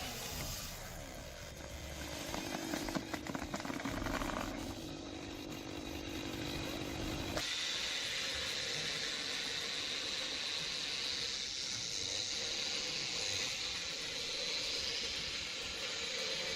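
Engine-driven forestry machinery running. About seven seconds in it changes abruptly to a steadier sound with a high whine.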